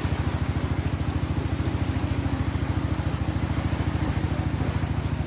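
Small boat engine running steadily with a fast, even chug.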